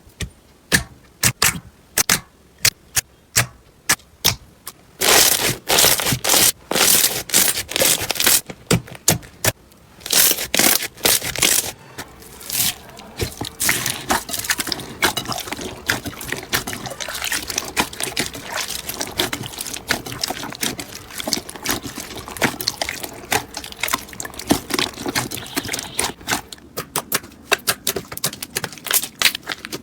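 Hands working slime: at first sparse sharp clicks and pops, then from about five seconds in a dense, continuous wet crackling as the slime is squished and stretched and its trapped air pockets pop.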